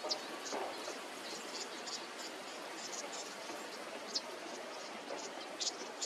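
Outdoor ambience: a steady hiss with many short, high-pitched chirps scattered irregularly through it.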